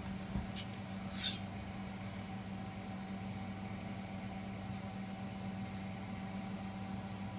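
Metal carving fork and knife clinking and scraping against a ceramic baking dish while probing a cooked joint of meat: a couple of light clicks, then one louder scrape about a second in, over a steady low hum.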